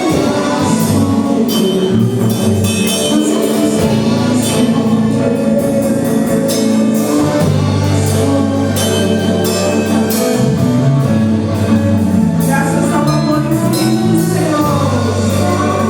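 Pentecostal worship music: singing over instruments, with a tambourine shaken along.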